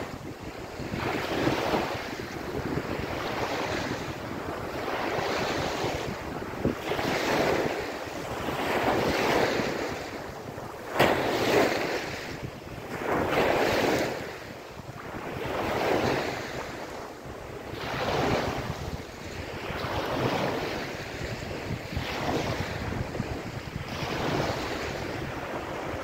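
Small waves breaking and washing up a sandy beach, the surf swelling and ebbing every two seconds or so. The loudest wash comes about eleven seconds in.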